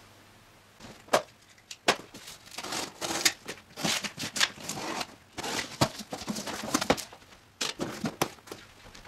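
Cardboard shipping box being unpacked by hand: packing tape pulled off the top and the cardboard flaps scraped and folded open, giving irregular rustling, tearing and crackling with a few sharp clicks.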